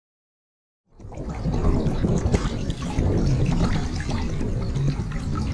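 Choppy lake water sloshing and splashing right by the microphone, with wind buffeting it, cutting in suddenly about a second in after silence.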